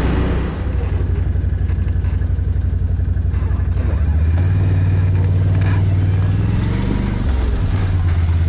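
Can-Am ATV engine running as the quad rolls along a dirt trail at low speed. The low, steady throb rises in pitch about halfway through and drops back near the end as the throttle changes.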